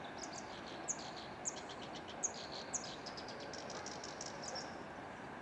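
Small songbirds singing: four sharp high notes about half a second apart, then a quick run of chirps, over a steady background hiss.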